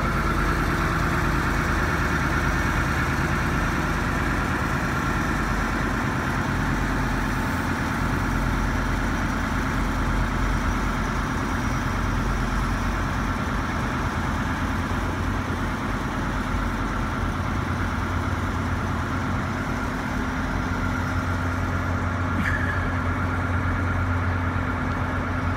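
Diesel engine of a Ford C-series fire truck running steadily, powering the hydraulics as the Tele-Squrt aerial ladder boom is raised.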